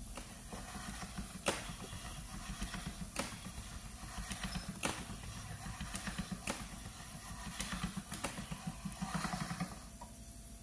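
Hand-cranked steel pasta roller turning as dough is rolled through it: a continuous low gear rattle, with a sharp click about every one and a half to two seconds.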